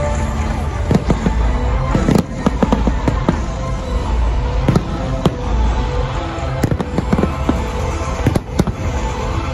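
Fireworks display: aerial shells bursting in many sharp, irregular bangs and crackles, some in quick clusters, with music playing underneath.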